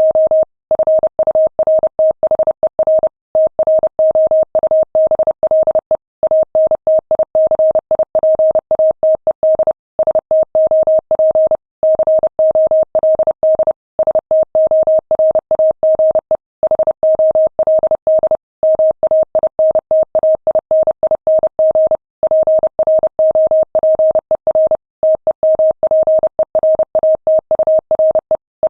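Morse code sent at 30 words per minute as a single steady beep tone, keyed on and off in rapid dots and dashes. Short pauses between words break the stream, and nothing else is heard in the gaps.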